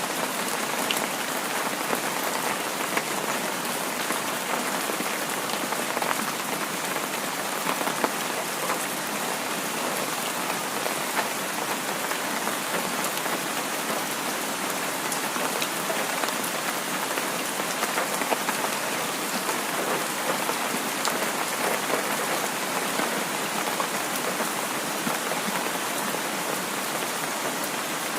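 Heavy rain falling steadily, a dense even hiss with scattered sharp drop ticks.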